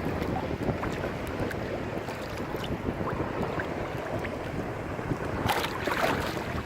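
Wind buffeting the microphone over the wash of ocean surf, with a louder rush of breaking water about five and a half seconds in.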